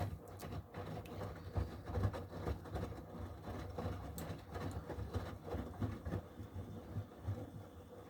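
Miele washing machine running: an uneven low rumble with irregular soft thuds and a few faint clicks.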